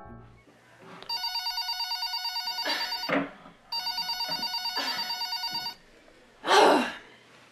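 Smartphone ringing with a trilling, old-style telephone-bell ringtone: two rings of about a second and a half to two seconds each, about a second apart. Near the end comes a brief, loud noise.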